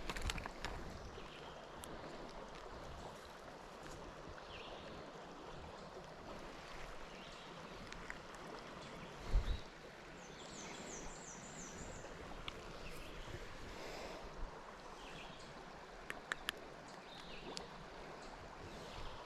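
River water flowing steadily around a wading angler, a continuous rushing hiss. About ten seconds in, a short high series of about five quick chirps sounds, and a low thump comes just before it.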